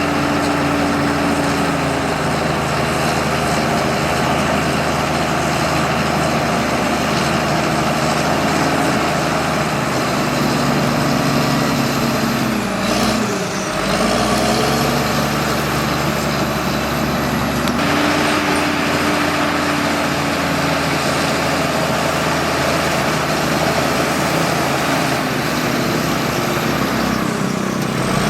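Bulldozer's diesel engine running steadily under work, its pitch dipping and recovering briefly about halfway through.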